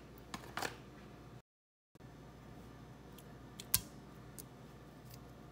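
A few light clicks and taps of cooking utensils against a stainless steel pot, with one sharper knock just before four seconds in. The sound cuts out completely for about half a second around a second and a half in.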